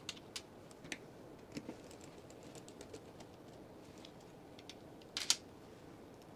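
Scattered light clicks and taps of tiny screws and a precision screwdriver being handled and set on a smartphone's frame, with a sharper double click about five seconds in.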